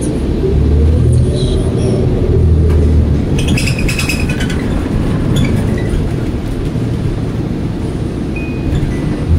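Steady low engine and road rumble inside a moving city bus, with a whine that rises and falls in the first two seconds and a brief burst of rattling about three and a half seconds in.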